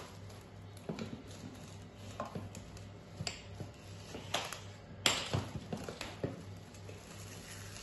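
Plastic cling film crinkling and crackling as it is pulled from the roll and pressed around a steel bowl, in scattered short bursts with a sharper click about five seconds in, over a faint steady hum.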